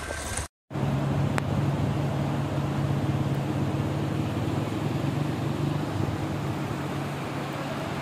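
Glacial mountain stream rushing over rocks: a steady roar with a low rumble under it, coming in after a brief dropout about half a second in.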